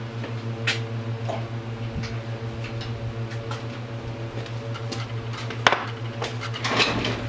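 Scattered metal clinks and knocks from hand tools and parts as the carburetor and intake are taken off an ATV engine, with one sharp knock about three-quarters of the way through and a short cluster of clatter near the end. A steady low hum runs underneath.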